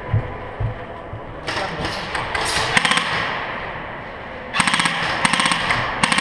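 Airsoft rifles firing full-auto: a rapid rattle of shots about a second and a half in, and a second burst near the end.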